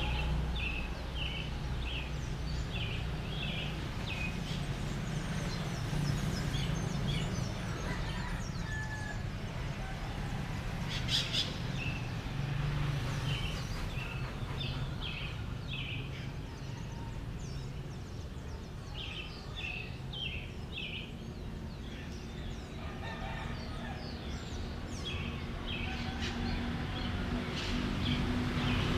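Dawn birdsong over a town: small birds repeat short high calls in quick groups of three or four, with roosters crowing among them. A steady low rumble runs underneath, and a brief sharp noise comes about eleven seconds in.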